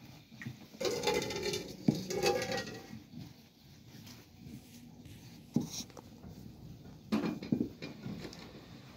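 Thin wooden rolling pin knocking and rolling over dough on a floured cloth, with hands patting and shaping dough balls. The busiest clatter comes about a second in and again near the end, with a single sharp knock in between.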